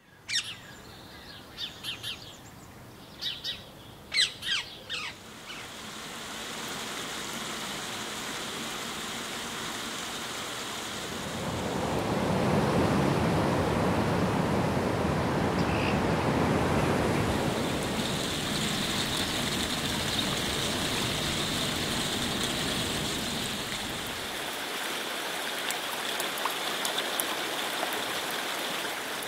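Outdoor suburban ambience: a few short bird calls in the first five seconds over a steady hiss of background noise. About eleven seconds in, a louder rush of noise swells up and eases off again after about seven seconds.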